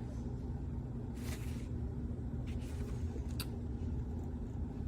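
Steady low background hum, with a few faint brief rustles and a light click.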